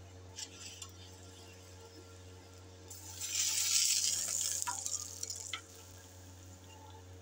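A loud sizzling hiss as fat flares up in flames on the hot tawa, starting about three seconds in and dying away after about two and a half seconds, over a steady low hum with a few light utensil clicks.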